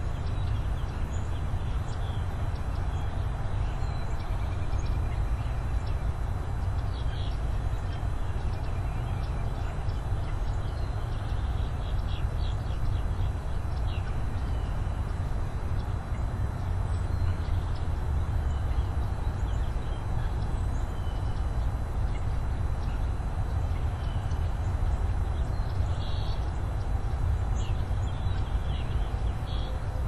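Steady outdoor low rumble with faint, short bird chirps scattered over it at irregular intervals.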